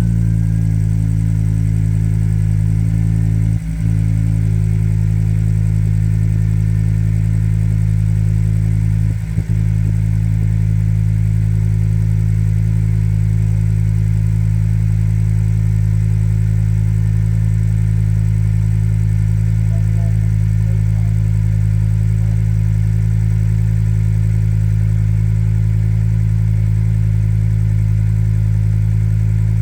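Ford ST petrol engine idling steadily on its first run after a cylinder head rebuild, with two brief dips in its sound about four and nine seconds in.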